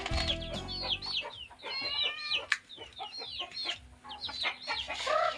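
Chickens being fed: a run of quick, high, repeated peeping chirps with an occasional lower cluck. Background music fades out in the first second.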